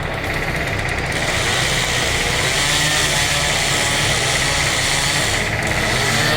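An engine runs steadily with a low hum. From about a second in to about five and a half seconds, a louder high-pitched hiss joins it and then drops away.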